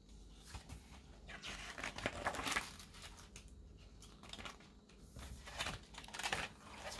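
Paper pages of a spiral-bound book being turned by hand, rustling and swishing in two spells, the second after a short lull.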